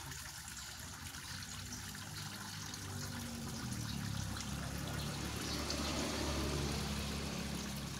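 Tank water swirling and splashing as a hand net is swept through it, over a steady trickle of running water; it grows louder a few seconds in.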